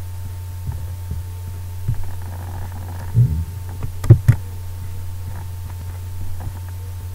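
Steady low electrical hum with a few sharp computer mouse clicks, one about three seconds in and a quick pair just after four seconds.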